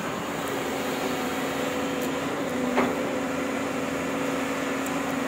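A JCB crawler excavator's diesel engine runs with a steady hum as the machine swings and reaches its arm out over the dig. There is one short knock about three seconds in.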